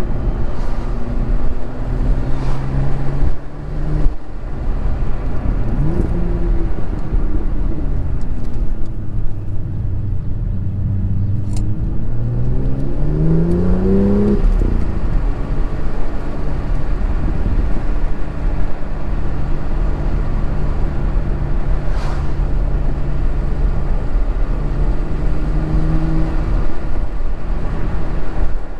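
BMW M2's turbocharged straight-six engine running under way with road noise, mostly holding steady revs. About twelve seconds in it revs up steadily for a couple of seconds, then drops back at a gearshift; a few short knocks are heard along the way.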